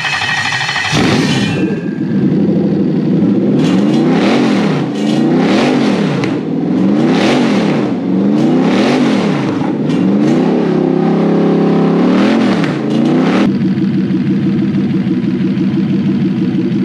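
Toyota 1UZ-FE 4.0-litre V8 firing up on its new Link plug-and-play ECU and loom, catching right away. The throttle is then blipped about five times, revs rising and falling, and held up briefly before the engine drops back to a steady idle near the end.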